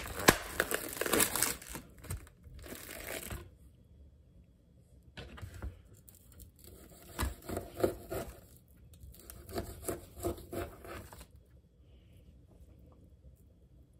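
Plastic cling wrap crinkling and tearing as it is pulled off a foam tray of raw beef short ribs, in several bursts with short pauses between.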